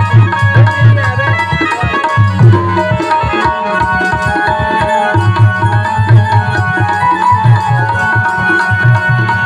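Instrumental Hindi devotional music: tabla playing a steady rhythm under a held melody line.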